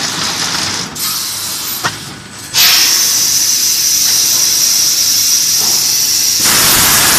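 TX-720C vacuum forming machine hissing with air as it forms plastic sheet over its copper moulds. The hiss breaks off briefly twice, then comes back louder and steady with a high whistling note from about two and a half seconds in.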